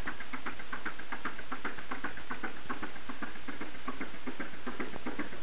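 A fishing boat's inboard engine running steadily with a rapid, even knocking beat of about six strokes a second.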